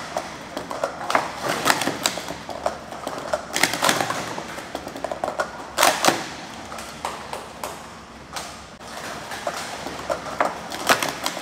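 Plastic speed-stacking cups clacking rapidly as they are stacked up and down in a sport stacking cycle run, in quick bursts of sharp clicks. There is a short lull about eight seconds in before the clacking picks up again.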